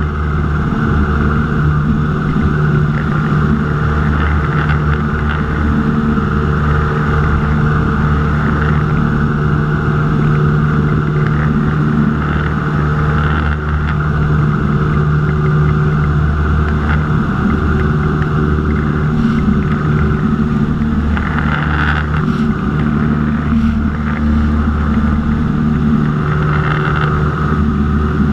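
Light aircraft's piston engine and propeller running steadily in flight, a loud even drone heard from inside the cockpit.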